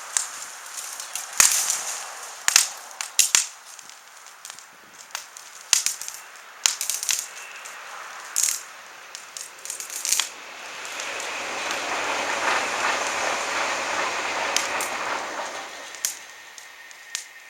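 Kindling of dry grass and small twigs crackling, with sharp irregular pops. About halfway through, a steady rushing noise rises and lasts about five seconds before fading, with a few more pops near the end.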